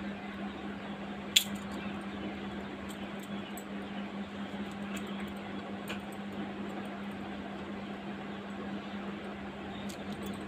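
Bangles clicking against each other a few times as they are worked onto a hand, one sharp click about a second in the loudest, over a steady low hum.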